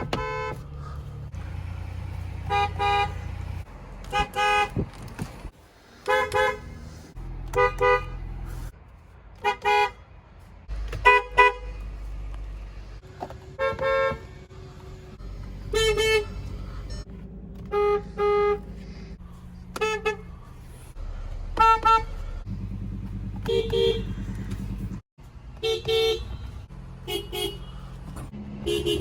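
A string of car horns from different cars, each giving one or two short honks, cut one after another. The background changes abruptly between clips.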